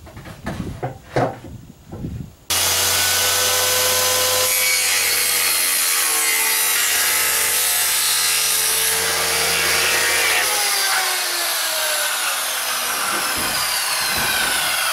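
A few knocks of wood being handled, then a circular saw starts suddenly about two and a half seconds in and cuts through a plywood deck panel. Near the end its pitch falls steadily as the blade winds down.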